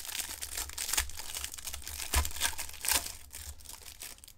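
Optic football card hanger box being opened by hand: irregular crinkling and tearing of its packaging, easing off near the end.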